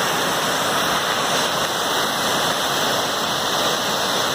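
Waterfall rushing with a steady, even roar, a winter waterfall that has totally opened up and is running freely.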